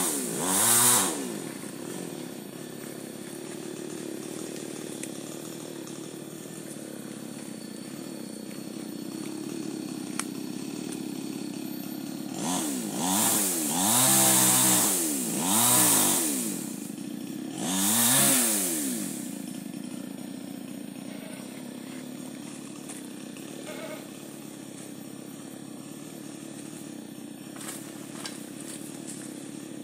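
Chainsaw running steadily, revved up and down as it cuts into an albasia (sengon) tree: once about a second in, then four revs in quick succession between about 12 and 19 seconds in.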